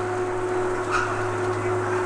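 Steady droning hum of the Staten Island ferry Andrew J. Barberi's machinery as it docks, holding one constant pitch, with a faint brief knock about a second in.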